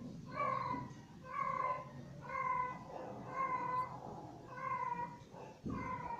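Kitten meowing over and over, about one short call a second, each dipping slightly in pitch.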